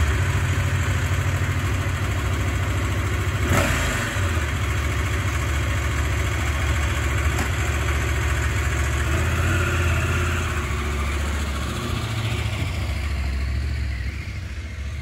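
Husqvarna Norden 901's parallel-twin engine idling just after being started, with a single clunk about three and a half seconds in. Later the bike pulls away and its sound drops off somewhat near the end.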